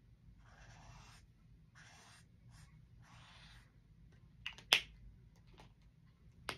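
Felt-tip marker drawing on sketchbook paper: three scratchy strokes, the longest about three seconds in. Then a few sharp clicks, the loudest about five seconds in.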